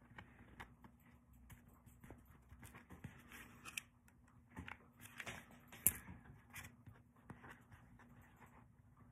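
Faint handling sounds of folding a necktie and using a hot glue gun on a tabletop: soft fabric rustling with scattered small clicks and taps, and one sharp click about two-thirds of the way through. A faint steady hum runs underneath.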